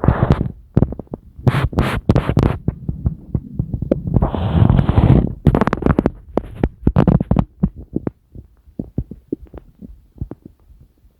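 Stomach and intestinal gurgling: irregular squelches and pops, with a longer rushing gurgle about four seconds in, thinning to scattered small pops in the last few seconds.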